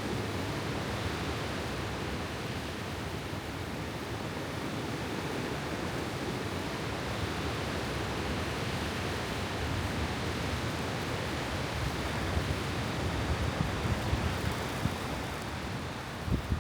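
Steady rushing snowstorm wind, with gusts buffeting the microphone in low thumps in the last few seconds.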